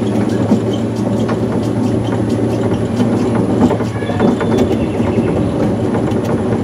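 Small electric monorail car running along its rail: a steady low motor hum with the rattle and scattered clicks of the car riding the track.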